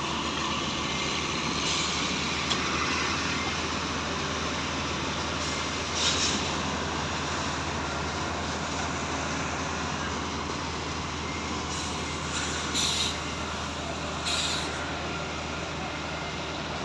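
Diesel engine of a truck-mounted concrete boom pump running steadily while pumping concrete, with a few short hisses.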